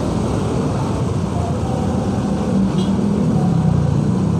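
Motorcycle riding in slow traffic on a wet road: steady engine and wind noise. Faintly behind it, a call to prayer (adhan) sung over a mosque loudspeaker, with long held notes.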